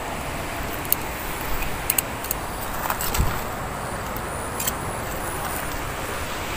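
Steady background road-traffic noise, with a few faint ticks.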